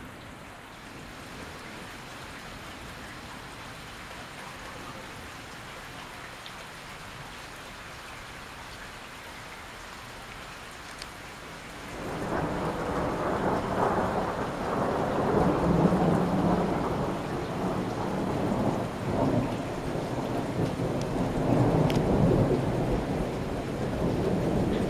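Steady rain hiss, then about halfway through a long roll of thunder breaks in suddenly and rumbles on, swelling and easing, much louder than the rain.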